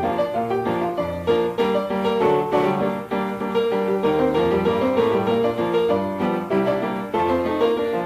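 Background music: a piano piece played in quick, even notes.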